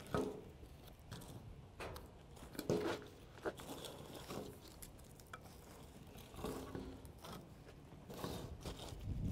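Burning newspaper crackling faintly, with irregular clunks and rustles as split firewood and paper are handled and set down on a metal tabletop over the flames.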